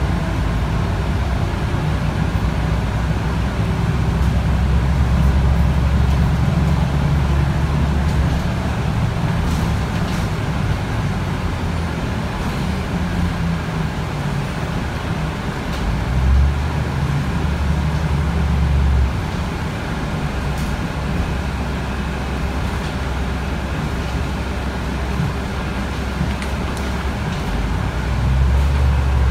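Cabin ride noise of a Mercedes-Benz O405G articulated bus under way: its diesel engine runs with a strong low rumble over steady road and tyre noise. The engine sound swells for a few seconds past halfway and again near the end.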